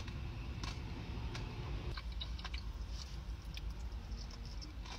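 Close-up biting into and chewing a slice of crème brûlée dessert pizza with a caramelised sugar topping: scattered small clicks and crunches of the bite and chewing over a steady low background rumble.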